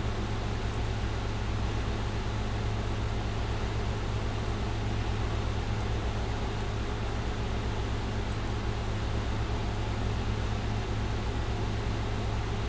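Steady background hum and hiss with a strong low drone that does not change: machine-like room noise of the kind a fan or air conditioner makes.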